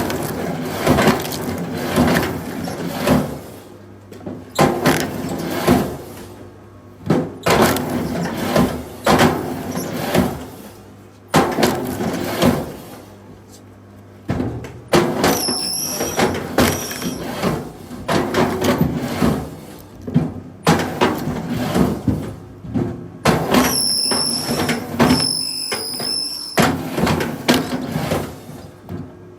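Pieces of wood knocking and clattering, irregular knocks about once a second, with a few brief high squeals in the middle and near the end.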